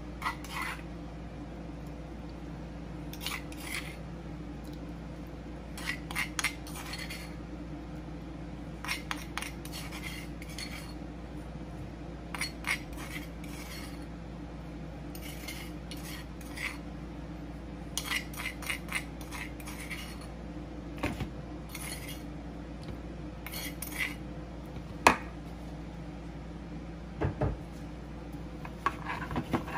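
A metal spoon clinking and tapping against dishes in irregular bunches of small clinks while marinade is scooped and spread, with one louder knock about 25 seconds in. A steady low hum runs underneath.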